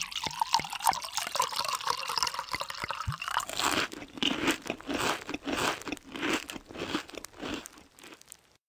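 Milk pouring from a jug into a bowl of cereal, then, about three seconds in, a quick run of crunches as the cereal is chewed, stopping near the end.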